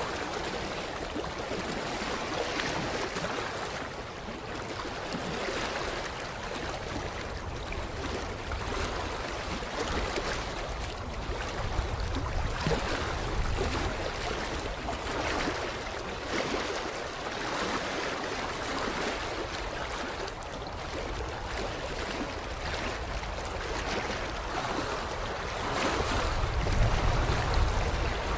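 Small waves lapping at a creek shoreline in soft, irregular swells. Wind buffets the microphone in low rumbles, heaviest near the end.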